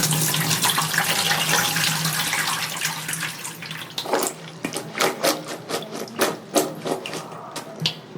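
Vegetables being washed in running water: a steady pour and splash of tap water for the first half, breaking up about halfway into a string of separate short splashes.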